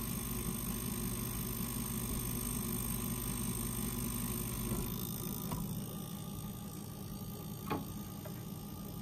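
Steady low hum and hiss from an RCA Victor Victrola 55U electric phonograph running with a 78 rpm record spinning before the needle is set down, with a faint click near the end.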